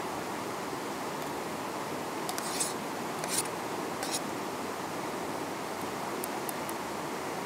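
Steady rush of a shallow stream, with three short scrapes about two to four seconds in and a few faint clicks near the end.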